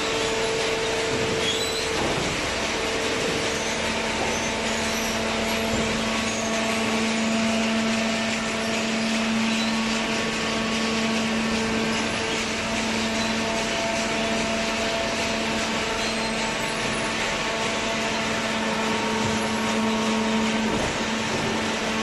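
Hydraulic waste-paper baling line running: a steady machine drone with a constant low hum over noise, from the baler's hydraulic power unit and its feed conveyor.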